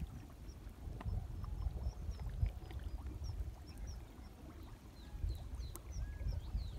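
Small birds chirping in many quick, short high notes over a low, uneven rumble.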